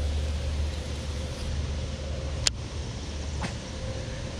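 Steady low rumble of wind on the microphone, with a faint steady hum under it. There is one sharp click about halfway through.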